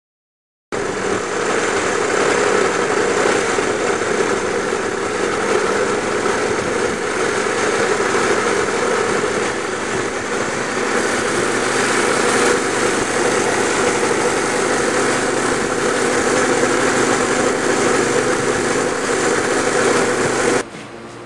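Minibike's small gasoline engine running steadily on a 50/50 alcohol-gasoline fuel mix, unmodified, as the bike is ridden. It starts suddenly just after the start and cuts off suddenly near the end.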